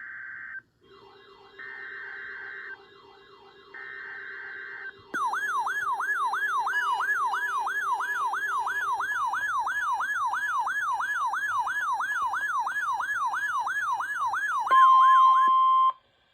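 Emergency Alert System test tones: three one-second bursts of SAME data header tones, then an electronic siren that sweeps quickly up and down, nearly three times a second, becoming loud about five seconds in. Near the end comes the NOAA Weather Radio 1050 Hz warning alarm tone, steady and loudest, which cuts off abruptly.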